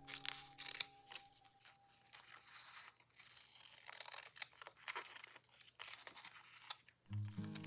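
Paper and stationery being handled up close: crinkling and rustling with light tearing and small clicks. Background music fades out about a second in and comes back near the end.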